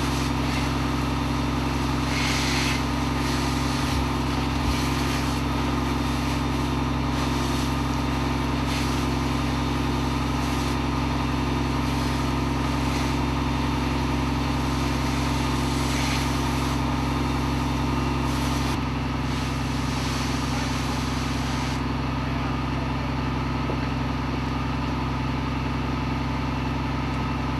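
Heavy diesel engine of a fire apparatus running steadily, its note shifting slightly about 19 seconds in, with a hiss over it that lessens about 22 seconds in.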